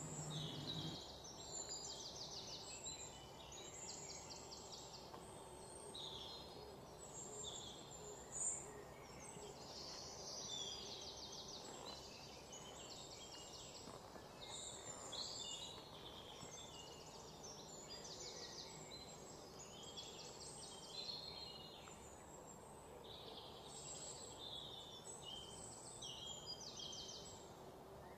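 Faint birdsong: repeated short trilled chirps over a low, steady background hum, with one sharp click about eight seconds in.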